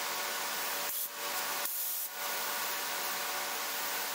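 Air-fed gravity-cup spray gun hissing as it sprays clear coat, broken by two brief pauses in the first half as the trigger is let off.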